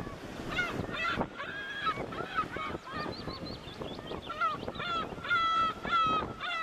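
A flock of birds calling, many harsh, honk-like calls overlapping in quick succession, several of them short falling cries, over a steady rush of surf.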